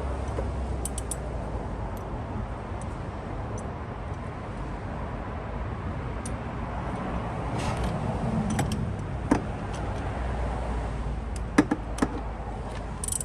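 A few sharp metallic clicks and clinks of hand tools and parts being worked in a car's engine bay, over a steady low rumble.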